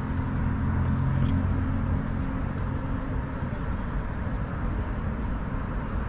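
A car running and moving off. A steady low engine hum is strong for the first couple of seconds and then fades back into even road noise.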